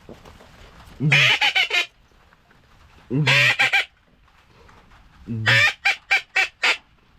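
Duck call blown in three loud runs of hen-mallard-style quacks, each a drawn-out quack followed by quicker, shorter ones; the last run ends in four separate quacks. This is calling to bring circling ducks in to the decoys.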